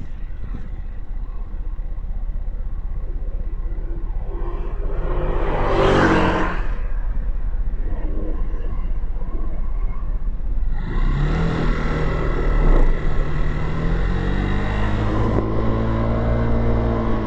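Motorcycle engine idling with a low rumble of traffic while another vehicle passes close by, loudest about six seconds in. From about eleven seconds the engine pulls away and its pitch rises as it accelerates.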